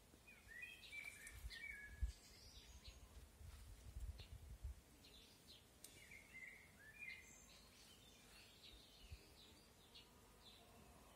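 Faint songbirds chirping and twittering in short repeated phrases, with a low rumble on the microphone during the first few seconds.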